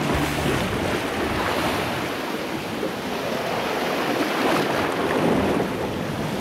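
Wind buffeting the microphone over the steady wash of choppy sea waves.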